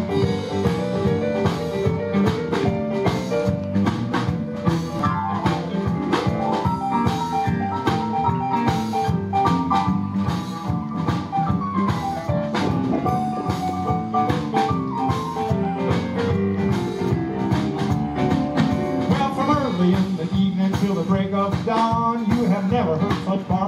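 Live blues band playing a shuffle: drum kit, electric bass, electric guitar and Kurzweil stage piano, with a melodic lead line riding over the rhythm through the middle.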